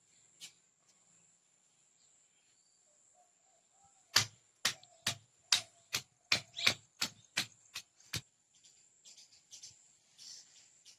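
A run of about a dozen sharp knocks, roughly three a second, starting about four seconds in and stopping about four seconds later, from hand food preparation: mango and red chilli being struck on a hard surface.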